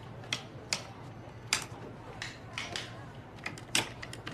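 About a dozen sharp clicks at an uneven pace from a clerk working at a wooden desk, like typewriter keys or abacus beads. The loudest come about one and a half seconds in and just before the end, over a low steady hum.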